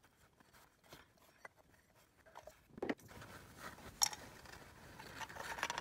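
Faint small clicks and light metal handling noise as a hand turns a hand-tight PCV fitting out of the engine valley with a long hex key. The first three seconds are almost silent.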